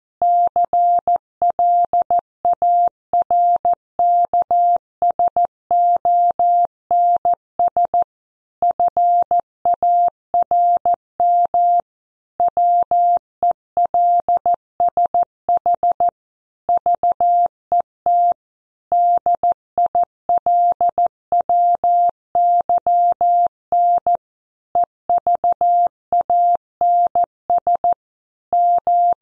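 Computer-generated Morse code: a single steady tone keyed on and off in short dots and longer dashes at 14 words per minute, with brief pauses between letters and longer gaps between words, spelling out a news headline for copy practice.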